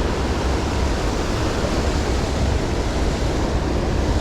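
Steady rushing of high, fast-running creek water, with a low rumble of wind buffeting the microphone.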